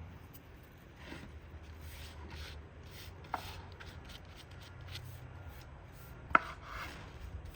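A knife chopping food on a cutting board in irregular strokes, about two to three a second, with two sharper knocks, one about a third of the way in and one near the end.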